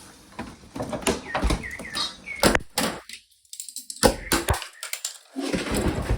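Irregular knocks, clicks and rattles of the TV's casing and parts being handled and worked on, broken by two short spells of silence around the middle.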